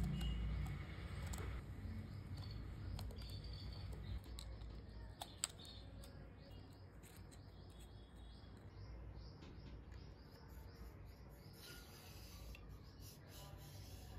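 Faint scattered clicks and ticks of a small hex key turning tiny machine screws into the metal wheel of a WP-85 model turbojet kit, with one sharper click about five seconds in.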